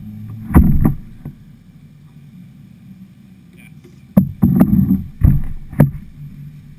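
Kayak on fast flood water: a steady low rush of water under loud, sharp paddle splashes and knocks, two close together just after the start and a quick run of four or five about four to six seconds in.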